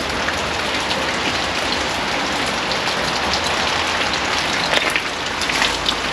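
Steady rain falling, with single sharp drop hits that come more often in the second half.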